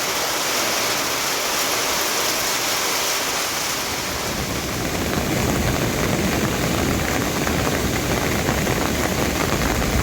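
Steady hiss of falling rain, with a deeper rushing layer joining about halfway through.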